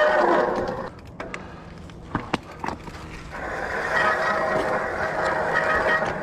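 Squealing bicycle front brake: a steady high-pitched tone that fades out about a second in. After a few sharp clicks and rattles, the squeal comes back about three and a half seconds in and holds until near the end.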